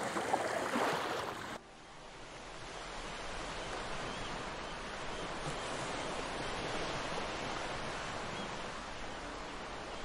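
Small, gentle waves washing over a pebble beach. About a second and a half in, the sound cuts to a quieter, steady wash of surf.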